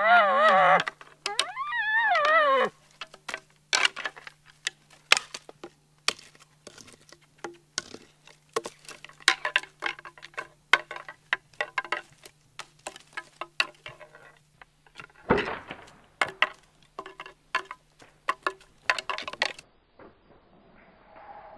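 A high, wavering elk-type call at the start, then a short one that rises and falls about two seconds in. After that come irregular cracks and crackles of dry twigs and brush underfoot, with one louder crash about fifteen seconds in. Everything cuts off suddenly shortly before the end.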